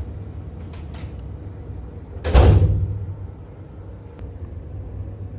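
A door shutting once, about two seconds in, sudden and loud and dying away over about half a second, over a steady low hum.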